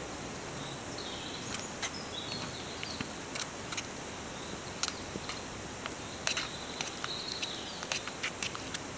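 Spoon stirring in a small metal cooking pot of thick lentil soup, with irregular clinks and scrapes against the pot, over a steady hiss from the canister gas stove burning under it.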